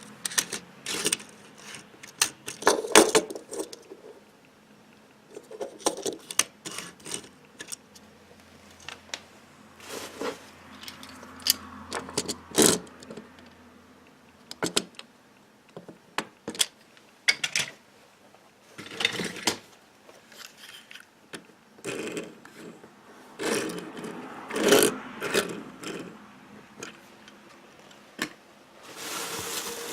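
Small die-cast toy cars being handled: irregular clicks, clinks and rattles in clusters every second or so, with a few louder knocks.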